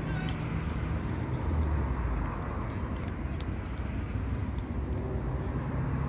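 Distant road traffic: a steady low rumble of passing vehicles that swells briefly about a second and a half in.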